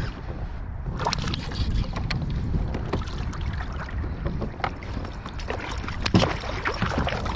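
Wind buffeting the microphone on a fishing kayak, with many short clicks, knocks and splashy sounds of handling starting about a second in.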